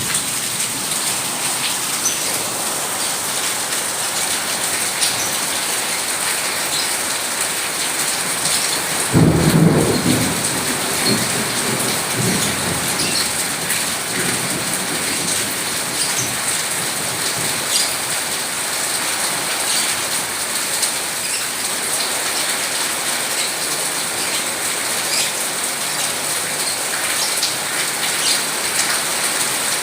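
Steady rain falling, with one clap of thunder about nine seconds in that rumbles away over the next few seconds.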